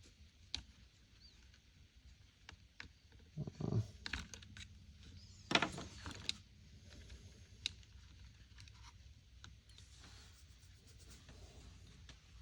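Light scattered clicks and knocks of small plastic chainsaw top-handle parts being handled while the throttle trigger and its spring are worked back onto their post, with two louder handling knocks about three and a half and five and a half seconds in.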